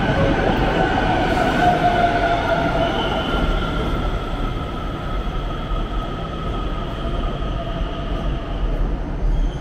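Electric metro train pulling into the platform, a steady rumble under a whine that slowly falls in pitch as it slows.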